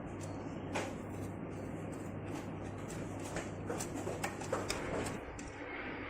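Light clicks and knocks of parts of a veterinary anesthesia machine being handled and fitted together during assembly, over a steady low hum. Most of the clicks come in a cluster past the middle.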